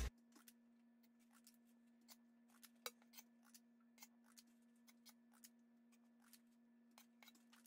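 Near silence: a faint steady hum with scattered faint clicks, the clearest about three seconds in.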